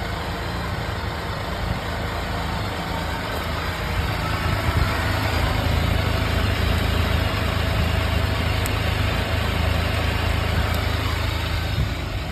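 Can-Am Spyder RT's three-cylinder Rotax 1330 ACE engine idling steadily, a low hum that gets a little louder about four seconds in.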